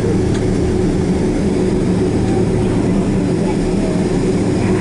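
Cabin noise of a Boeing 767-400ER taxiing, heard from a window seat over the wing: the idling jet engines and airflow make a steady low hum with one constant tone.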